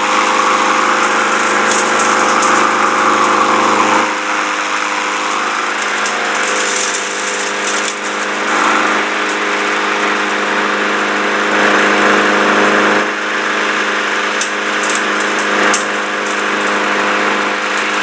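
Small gasoline walk-behind lawn mower engine running steadily, now starting and staying running after its carburetor parts and air filter were cleaned. The level dips briefly a few times.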